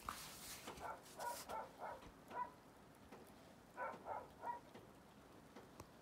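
Faint dog barking: a run of five or six short barks, then three more about four seconds in.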